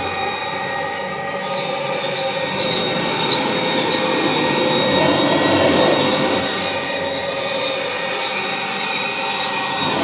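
Kirby G4 upright vacuum cleaner running steadily as it is pushed over a carpet, its motor and 10-blade aluminum fan giving a high whine over the rush of air. It grows a little louder for a couple of seconds midway.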